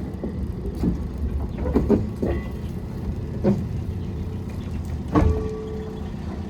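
Rail shunting move: the low, steady rumble of a locomotive and rolling wagons, broken by sharp metallic clanks about every one to two seconds. A brief ringing metal squeal sounds just after the clank about five seconds in.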